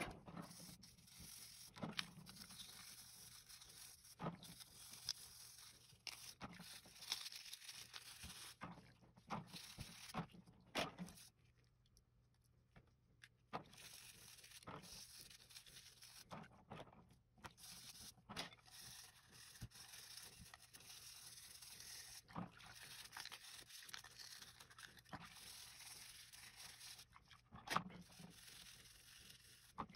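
Faint scrubbing of a Microsoft IntelliMouse Optical's plastic shell parts with a small brush in soapy water: bristles scraping and rubbing, with small plastic knocks and splashes. It pauses briefly about eleven seconds in.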